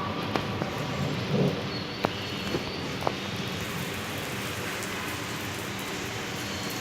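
Steady rain falling, an even hiss, with a few sharp ticks of drops striking a hard surface in the first few seconds.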